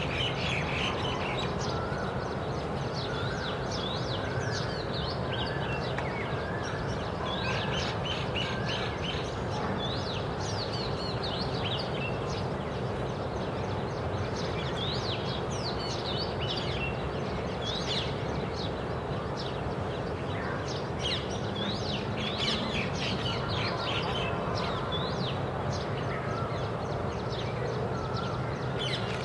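Oriental magpie robin singing: short, varied whistled notes and chirps in irregular phrases, over a steady low background noise.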